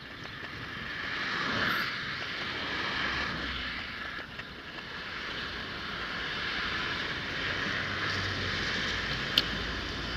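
Steady outdoor street noise: a hiss of wind and traffic on the microphone, with one sharp click about nine seconds in.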